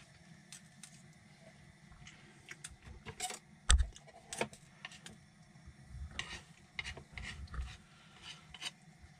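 Kitchen utensils tapping and scraping at a frying pan during cooking: scattered light clicks and rubs, with one sharper knock about four seconds in.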